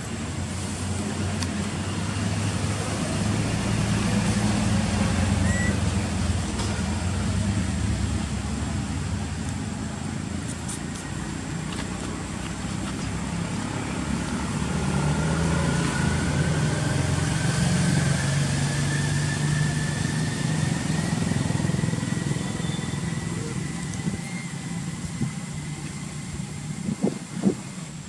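A motor vehicle's engine running close by, a low steady rumble that grows louder about four seconds in and again in the middle, with a faint, slowly rising whine over it. A few sharp clicks near the end.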